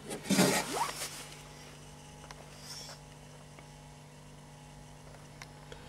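A brief scraping rub, then a faint steady low hum.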